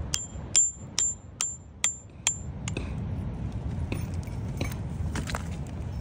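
A hammer striking stone, metal on rock: six evenly spaced sharp blows, about two a second, each with a short high ring, then a few softer, irregular knocks, over a steady low rumble.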